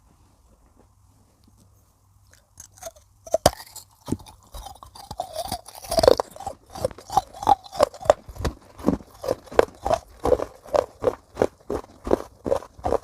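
Baked clay pot pieces being bitten and chewed close to the microphone: quiet at first, a sharp bite about three and a half seconds in, then steady crunchy chewing at about two to three chews a second.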